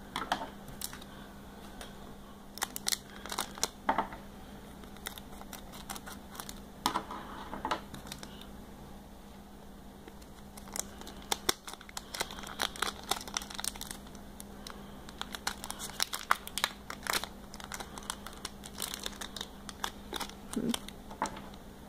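Shiny foil-plastic wrapper of a trading-card pack crinkling and crackling in the hands as it is worked open, in irregular bursts with short quieter pauses.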